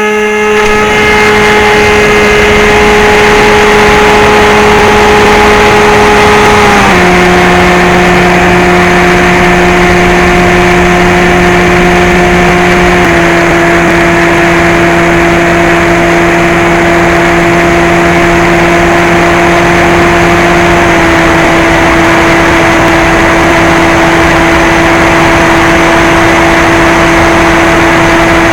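Model airplane's motor and propeller running at high throttle, a steady drone over rushing air. The pitch drops in three distinct steps, about seven, thirteen and twenty-one seconds in, as the throttle is eased back.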